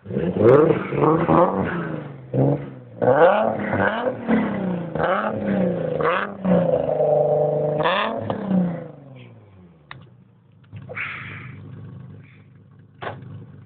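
Nissan 300ZX's 3.0-litre V6 through a full HKS exhaust with AMS headers and high-flow cats, revved in a series of quick blips, then held high for a moment and let fall back to idle about nine seconds in. It idles steadily after that, with a couple of short clicks.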